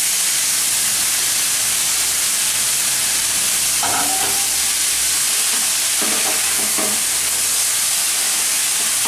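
Freshly added shredded ash gourd sizzling in hot mustard oil in a wok, turned over with a wooden spatula that scrapes and knocks against the pan a few times around the middle.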